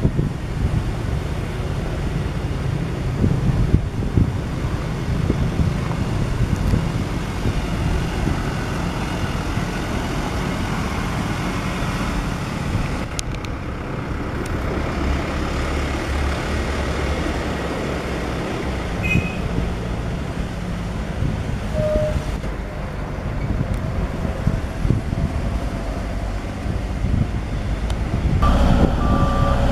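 Hamm 3410 single-drum soil compactor's diesel engine running steadily as the roller drives over loose soil. Near the end its reversing alarm starts beeping.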